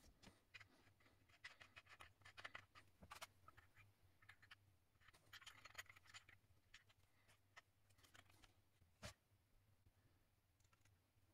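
Faint scratching, rustling and small clicks of wooden parts and hand tools being handled on a workbench, with one sharper knock about nine seconds in.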